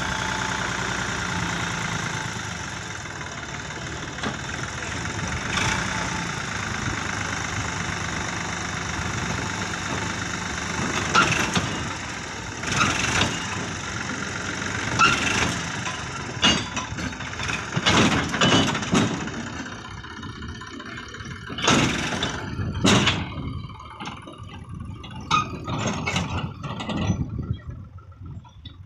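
Sonalika tractor's diesel engine running steadily while its hydraulic tipping trolley dumps a load of soil. From about ten seconds in, a string of sharp knocks and clatters sounds over the engine, which fades toward the end.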